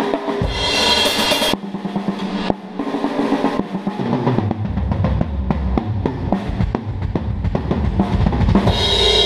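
Drum kit played during a sound check: a cymbal crash near the start, then quick strokes on the snare and toms, with bass drum beats coming in about four seconds in and a cymbal crash at the end.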